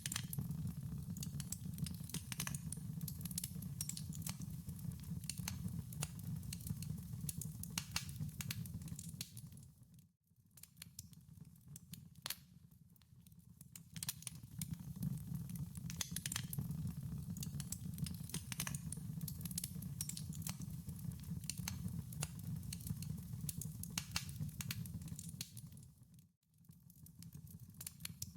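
Wood fire burning in a fireplace, with dense, irregular crackles and pops over a steady low rumble. The sound dips almost to nothing twice, about ten seconds in and again near the end.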